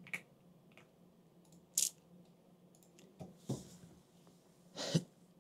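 A few faint, isolated computer mouse clicks, about four short sounds spread over several seconds, with near quiet between them.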